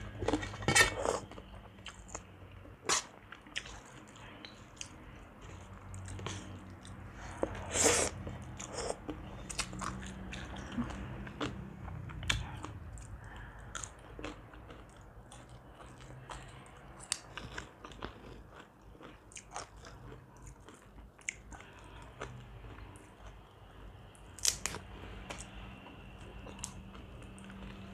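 Close-miked chewing and biting of crunchy food: wet chewing sounds with frequent sharp crunches, a few of them louder, as spicy papaya salad with rice noodles and raw vegetables is eaten.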